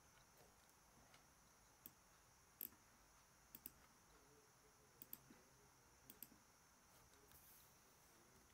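Near silence with steady faint hiss and about eight faint, scattered clicks, in pairs around the middle: a digital pen and cursor being clicked while writing on a pen tablet.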